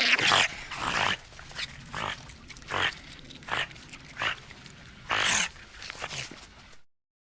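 Eurasian otter calling: a string of short, harsh calls spaced about half a second to a second apart, with one longer call about five seconds in. The calls stop shortly before the end.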